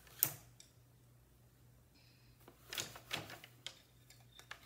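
Louet Erica wooden table loom worked by hand: one sharp clack about a quarter second in as the shaft levers are flipped to change the shed, then a short run of softer knocks and rattles from the loom's parts about two and a half seconds in, and a few faint clicks after.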